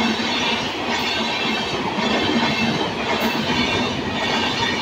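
Indian Railways passenger coaches passing close by at speed: a steady, loud noise of wheels running on the rails.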